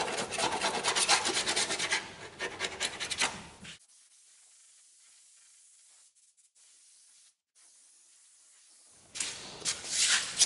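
Spatula scraping excess half-cured body filler off a car's wheel-arch edge in quick repeated strokes. The filler has set but still cuts easily. The scraping stops a little under four seconds in, and after a few seconds of near silence it starts again near the end.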